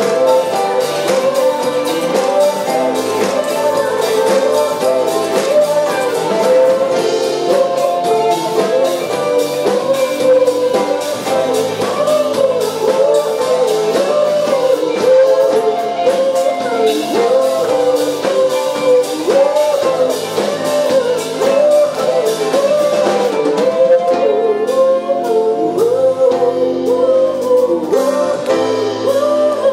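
Live band playing a song: a woman sings lead into a microphone over electric guitar, keyboard, bass guitar and drum kit.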